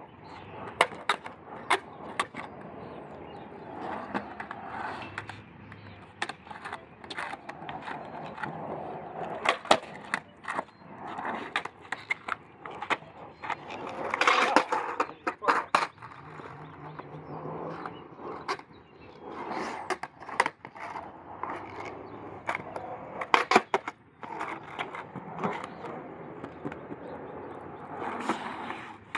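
Skateboard wheels rolling over a concrete path, broken by many sharp clacks as the tail is popped against the ground and the board lands during ollie attempts.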